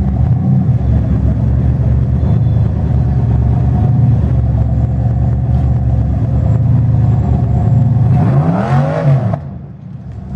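Rock-crawler buggy's engine held at high revs under hard throttle as it climbs over boulders with its tires spinning. Near the end it revs up and back down once, then drops off throttle and goes quieter.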